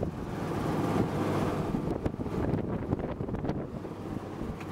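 Fasco condenser fan motor in a Lennox Elite heat pump outdoor unit running steadily, its blade pushing air that buffets the microphone, with a few light ticks about halfway through. The motor runs, though the unit is a bit busted.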